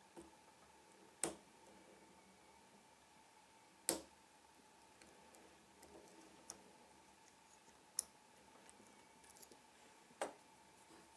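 Lock picks working in a Trioving 5632 padlock: four sharp metallic clicks a few seconds apart, with faint ticking between them.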